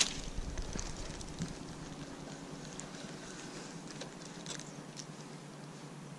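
A spinning rod being cast: a sharp click at the start as the rod swings forward, then a low rumble for about a second and a half and a few faint ticks over a steady low hum.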